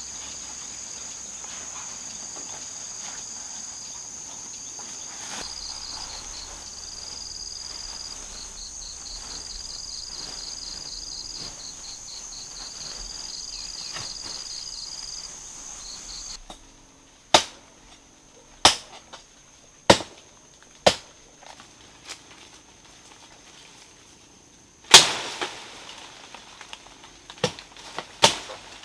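Insects buzzing in a steady high drone with a pulsing chirp over it. About halfway through this stops and a string of sharp knocks follows, irregularly spaced about a second apart, with one much louder knock near the end.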